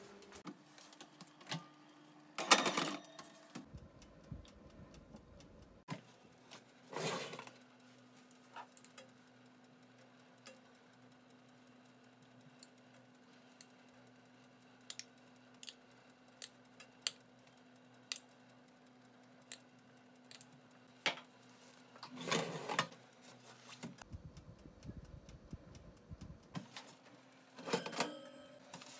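Faint handling sounds at an open oven and its metal baking tray: scattered sharp clicks and light knocks, and four louder scraping rushes about a second long. A steady low hum runs under them.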